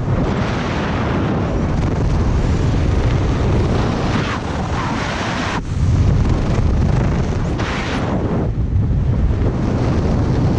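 Wind rushing and buffeting over a helmet camera's microphone while flying a high-performance parachute canopy, rising and falling in gusts and loudest just after a brief dip about six seconds in.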